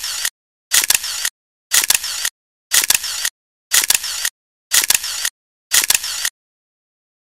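Camera shutter sound effect repeated about once a second, seven times. Each is a sharp double click followed by a brief steady rush of noise, with dead silence between them.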